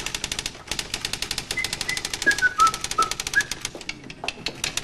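Fast typing on a typewriter: a quick, even run of key strikes, about eight to ten a second. About halfway through, a few short high notes step down in pitch over the clicking.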